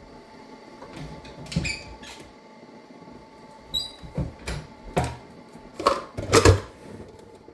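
Kitchen clatter of coffee being made: a string of knocks and clicks from cups, utensils and the coffee maker being handled, the loudest about six and a half seconds in, with a short high squeak near four seconds.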